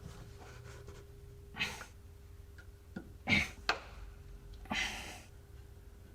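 A plastic trim bracket being twisted and pulled off the car body: a few short scrapes and creaks, with a sharp click about three and a half seconds in.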